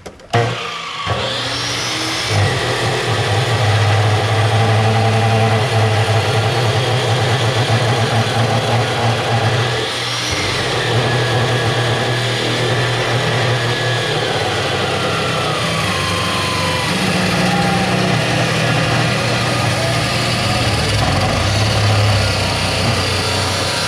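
Electric power tool motor running: it spins up quickly, runs steadily with a few dips and slides in pitch as it is loaded, and winds down near the end.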